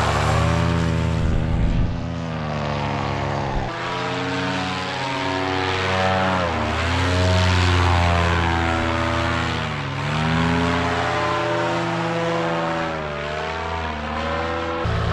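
Polini Thor single-cylinder two-stroke paramotor engine and propeller running, with the throttle repeatedly eased off and opened up again so the pitch dips and rises; the sound changes abruptly about four seconds in.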